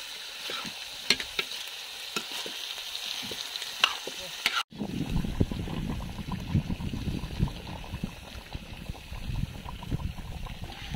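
Raw chicken pieces frying in a large iron kadhai: a steady sizzle with the steel ladle scraping and clicking against the pan as they are stirred. About halfway through the sound cuts off abruptly and a lower, crackly stirring noise takes over.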